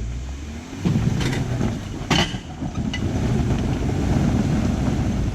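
A Jeep crawling a rocky off-road obstacle: the engine works under load with tyres and rock noise, and there are two sharp knocks about one and two seconds in.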